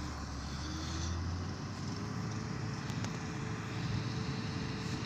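Diesel engines of road-building machines, a road roller and a motor grader, running at a distance. A steady rumble with a faint engine note that climbs a little in the first two seconds and then holds.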